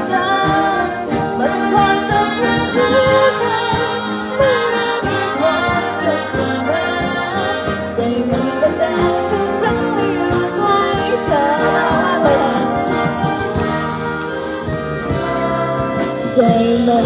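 A woman singing a song into a microphone, amplified through a PA speaker, backed by a wind band of brass and woodwinds holding sustained chords under her melody.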